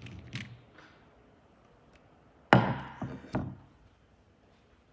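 A wooden board set down over the sanding drums on a hard floor: one loud sharp wooden knock about two and a half seconds in, then two smaller knocks as it settles. Light clicks come at the start.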